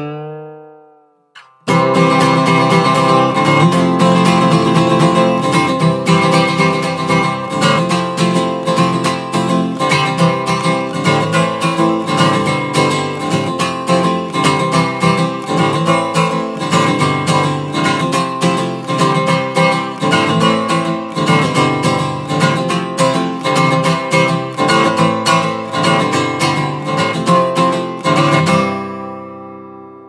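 Background music led by acoustic guitar with a strummed, steady beat, starting about two seconds in and fading out near the end.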